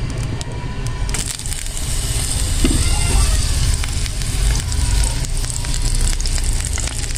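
Food frying in hot oil in a pan: a crackling sizzle that starts suddenly about a second in and keeps going. A cat meows about three seconds in.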